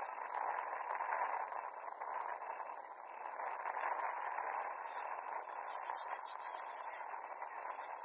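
Steady hiss of open-air ambience from a football match on an artificial-turf pitch, with faint scattered ticks and no clear voices.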